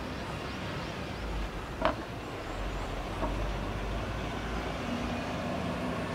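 A vehicle engine running with a steady low rumble, and one sharp click about two seconds in.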